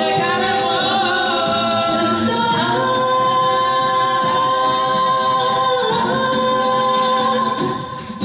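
A six-voice a cappella group sings a pop song in close harmony, holding long sustained chords over a sung bass line, with soft vocal-percussion ticks keeping time. The voices dip briefly near the end.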